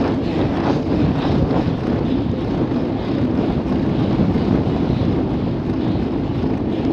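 Steady wind rush buffeting the microphone of an action camera on a mountain bike ridden at about 20 mph.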